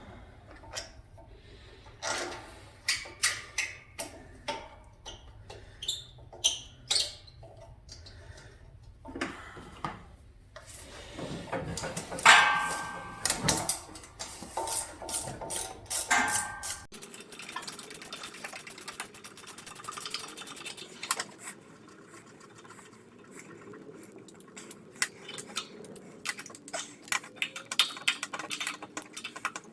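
Metal hand tools and parts being handled while fitting a starter to a riding mower engine: scattered clinks, taps and knocks, with a louder stretch of scraping and rattling about twelve to sixteen seconds in.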